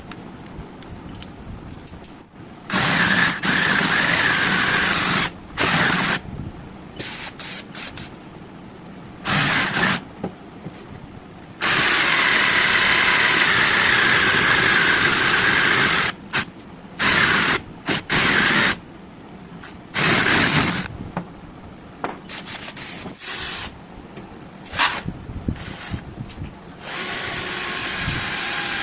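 12 V cordless drill motor running in a series of trigger-pulled bursts, most short, the longest about four seconds, with a steadier, quieter run starting near the end.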